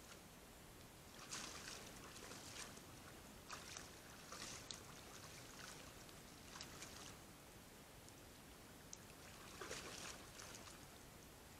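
Red deer hinds wading in shallow water: faint splashing and sloshing steps in several short bursts over a low steady hiss.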